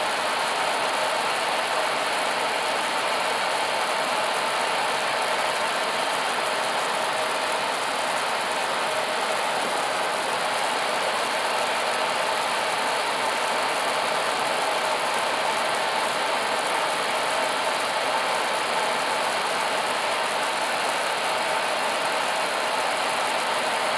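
Steady cockpit noise of an Airbus A320 on final approach: a continuous rush of airflow over the airframe with the engines' hum underneath, unchanging throughout.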